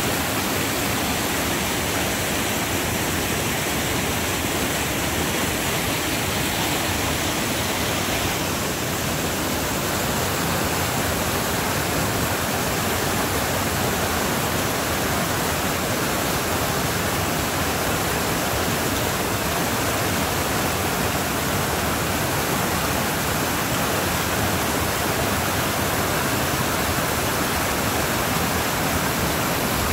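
Flood-swollen creek rushing through rapids after heavy rainfall: a steady, full rush of fast-moving water. Its tone shifts slightly about eight seconds in.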